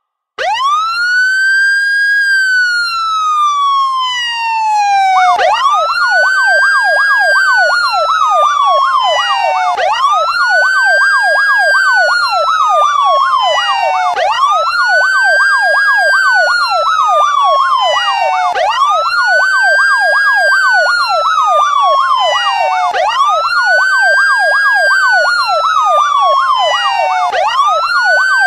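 Electronic police siren. It runs a wail, rising quickly and sliding slowly back down, that repeats about every four and a half seconds, and from about five seconds in a fast yelp of roughly three or four warbles a second sounds over the wail.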